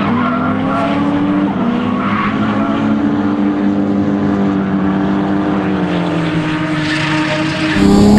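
Toyota 1JZ straight-six in an MK3 Supra held at high, nearly steady revs through a drift, its pitch wavering slightly with the throttle, over the hiss and squeal of the rear tyres spinning into smoke. It gets louder near the end.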